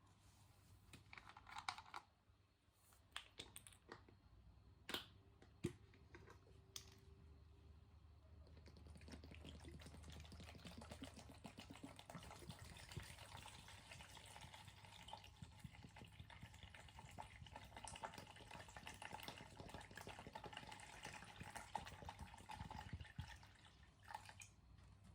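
Faint clinks of metal parts, then from about nine seconds in a long, faint hiss and trickle of liquid as motorcycle parts are washed.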